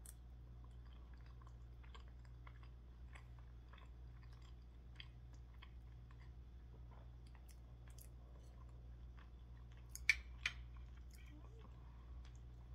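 Close-up chewing of a mouthful of lasagna: faint, soft, wet mouth clicks scattered throughout over a steady low hum. Two sharper clicks come about ten seconds in.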